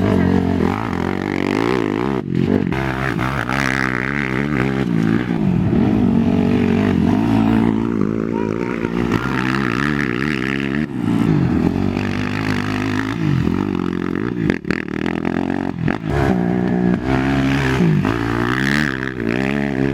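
Racing quad ATV engines revving hard, several at once, their pitch climbing and dropping over and over as the riders throttle and shift.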